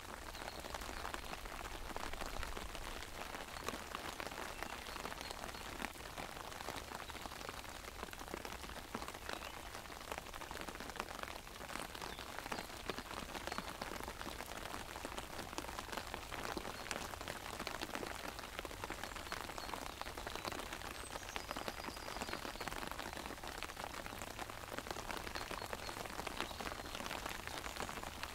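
Steady rain falling on an umbrella held overhead: a dense, even patter of many small drop ticks on the canopy, with no break.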